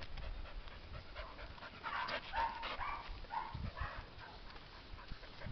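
A dog panting on a leash, with a cluster of quick breaths in the middle. A couple of low thumps follow.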